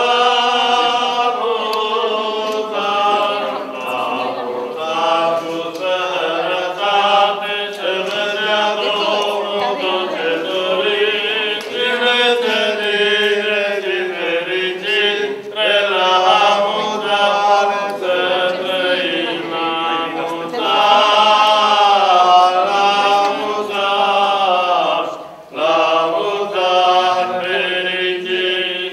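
Unaccompanied liturgical chanting of the wedding service, sung continuously with held and gliding notes and a brief break about 25 seconds in.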